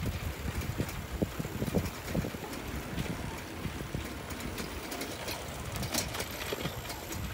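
Bicycle ridden over a paving-stone path: a steady low rumble from the rolling tyres, with scattered small rattles and knocks from the bike.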